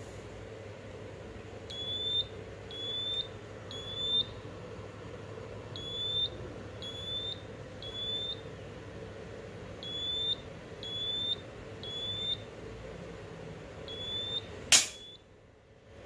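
Smoke alarm sounding in groups of three short beeps, each rising slightly in pitch, with a pause between groups. Near the end a single loud sharp snap as the circuit breaker trips and cuts the lamp's power, and the beeping stops partway through a group.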